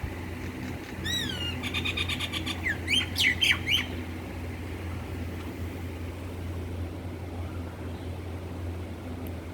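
Myna calling: a whistled note that rises and falls, then a quick run of rapidly repeated notes, then a few loud, sharp calls, all within about three seconds before it falls quiet. A steady low hum runs underneath.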